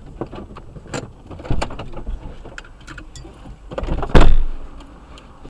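Clicks and knocks of a car's door handle and door being worked, then a car door shut hard with a loud thump about four seconds in.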